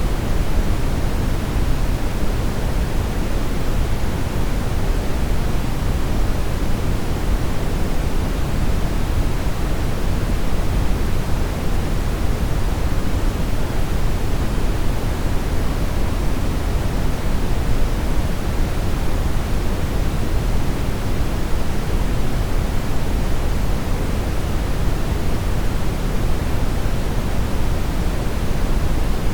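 Television static: a steady, unbroken hiss of noise, heavier in the low end, the sound of a TV set receiving no signal.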